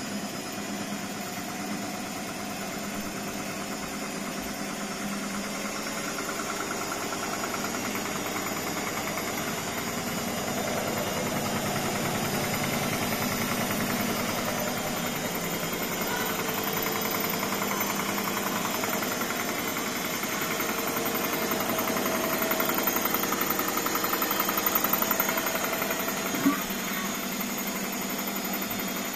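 Indesit BWSE 61051 front-loading washing machine on its spin cycle, the drum spinning steadily on freshly replaced bearings, with one short sharp knock near the end.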